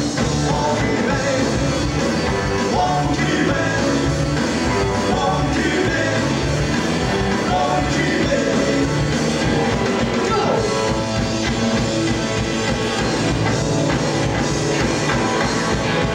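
Rock band playing live, a singer over electric guitar and drums, heard from among the audience in a club.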